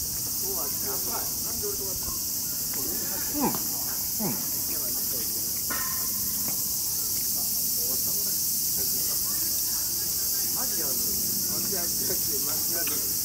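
Steady, high-pitched chorus of insects, with a short falling sound about three and a half seconds in.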